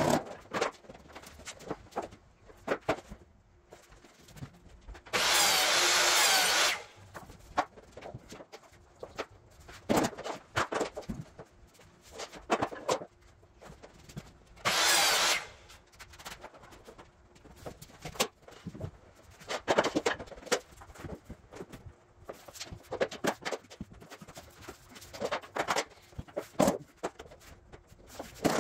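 Vinyl plank flooring installation: scattered knocks and clicks of planks being handled, set down and fitted, with footsteps. Two short bursts of a power tool stand out, the first about a second and a half long roughly five seconds in, the second shorter around fifteen seconds in.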